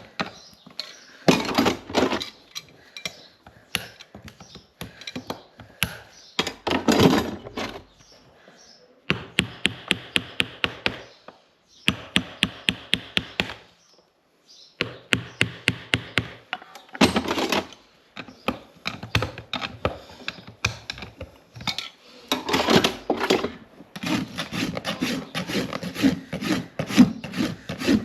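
Farrier's tools working a horse's hoof: bouts of quick, rhythmic rasp strokes and scraping on the hoof wall, broken by short pauses.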